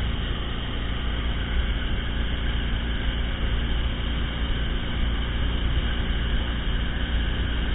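Ski boat running steadily at barefooting speed: a low engine drone under an even hiss of wind and water spray from a barefoot skier's feet on the water.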